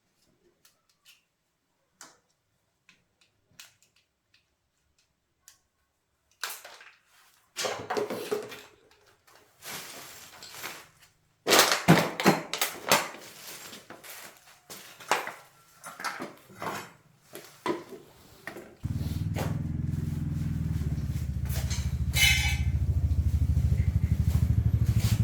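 Metal clattering and knocks, then about three-quarters of the way through a motorcycle engine starts abruptly and runs at a steady idle, getting slightly louder toward the end.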